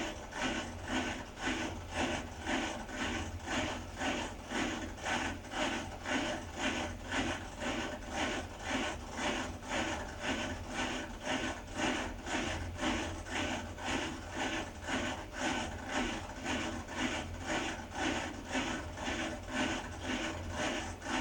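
Beko WDX8543130W washer-dryer running with a rhythmic rubbing, scraping noise that repeats evenly about twice a second, over a steady low hum. This is the abnormal noise the owner's machine makes.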